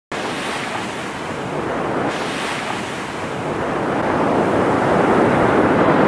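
Sea waves washing onto a sandy beach, with wind buffeting the microphone; the surf swells louder over the last couple of seconds.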